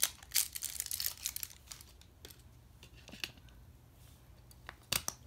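Hands handling a plastic TV remote and its loose battery cover on a foam mat: scattered clicks and rustling, busiest in the first second or two, then sparse, with a sharp double click near the end.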